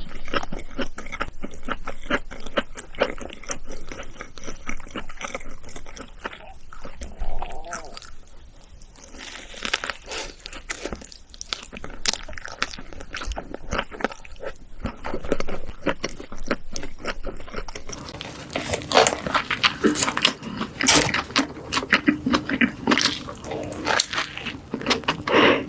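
Close-miked chewing and crunching of fast food: dense, rapid crackles and mouth sounds that thin out through the middle and grow louder and busier again in the last several seconds.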